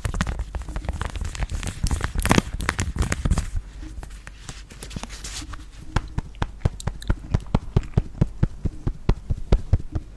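Close-miked ASMR tapping and clicking: a dense, irregular flurry of sharp clicks for the first few seconds, then after a quieter spell a regular run of crisp clicks about four to five a second.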